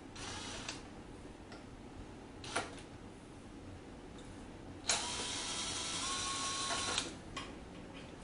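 A small electric driver whirs briefly, then a single click, then a steadier whir of about two seconds whose pitch shifts slightly partway through, as a fastener is run out.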